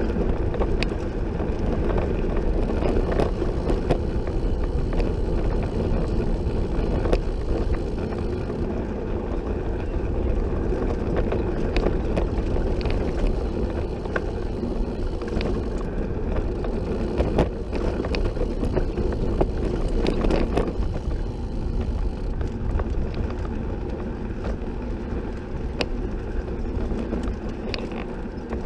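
Recumbent trike rolling along a paved bike path: a steady rumble of tyres and rushing air on the camera microphone, with scattered clicks and rattles from the trike.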